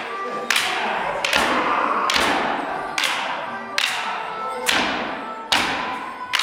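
Morris dancers' wooden sticks clashing together in a steady rhythm, about one clash a second, each ringing on in the hall, over quieter accompanying dance music with held notes.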